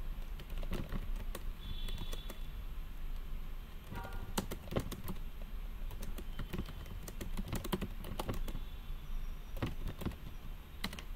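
Typing on a computer keyboard: irregular runs of keystroke clicks, with short pauses between them.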